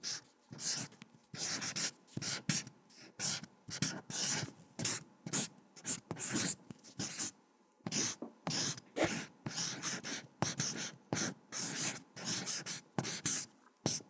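Felt-tip marker writing: a rapid series of short scratchy strokes, about three a second.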